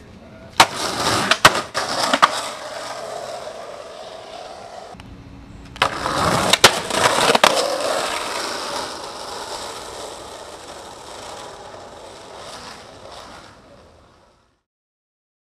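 Skateboard: a few sharp clacks of the board, then the wheels rolling and fading away, heard twice, the second run starting about six seconds in.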